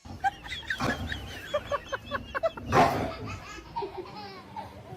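A person laughing in a quick run of short, high-pitched bursts, with a louder burst about three seconds in.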